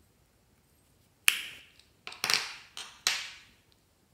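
Sharp plastic clicks, five of them in about two seconds starting a little over a second in: the hinged lids of small plastic donut-shaped toy compacts snapping shut.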